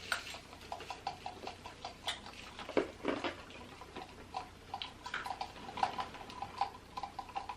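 Crunchy snacks being handled and eaten: many small crisp clicks and crackles, partly in quick runs of about four a second, with a couple of louder knocks about three seconds in.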